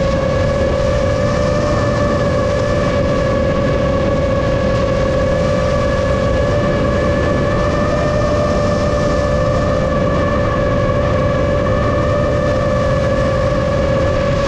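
Motors and propellers of a 7-inch FPV quadcopter drone in flight, a steady whine that holds nearly the same pitch and wavers only slightly, over a rushing of air.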